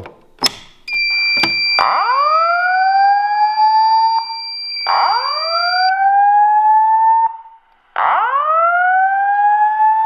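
A fire alarm pull station is pulled with a click, then a steady high electronic beep sounds for a few seconds. Over it, the voice evacuation speaker gives three rising whoop tones, each sliding up and levelling off over about two and a half seconds: the evacuation alert tone that comes before the spoken evacuation message.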